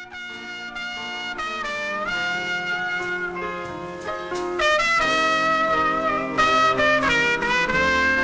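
Jazz music with horns playing held notes, starting softly and getting louder about five seconds in.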